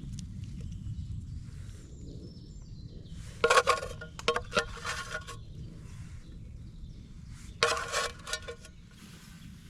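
Metal camp cookware clattering, two short bursts of clinks and rattles about four seconds apart, over a steady low rumble.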